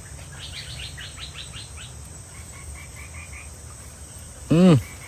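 Outdoor night-time-style chorus of insects with a steady high trill. A small animal calls a quick series of about six chirps near the start, followed by softer repeated notes. About half a second before the end comes a short loud exclamation from a man's voice.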